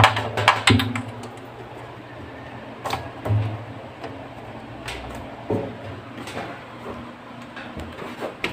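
Scattered clicks and knocks of red and white RCA audio plugs being handled and pushed into the rear jacks of a DVD player. The clicks come thickest in the first second, then singly every second or two.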